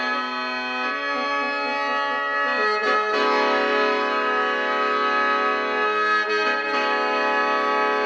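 Lao khaen, the bamboo free-reed mouth organ, playing chords over a steady drone: shifting notes for the first few seconds, then a long held chord from about three seconds in.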